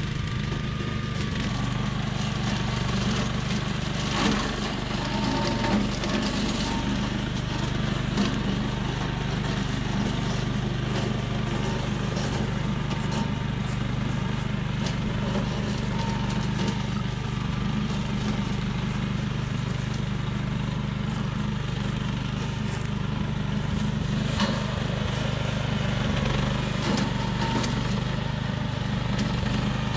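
Billy Goat Outback walk-behind brush cutter's engine running steadily under load as it is pushed through brush and saplings, with a few sharp knocks along the way.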